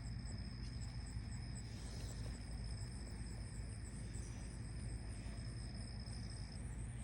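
Crickets trilling at dawn: one steady high-pitched trill that stops near the end, with another insect pulsing rapidly higher up, over a faint low rumble.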